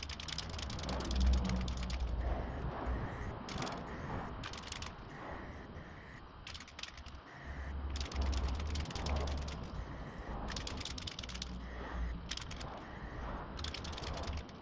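Aerosol primer can being shaken, its mixing ball rattling in bursts of rapid clicks, with wind rumbling on the microphone.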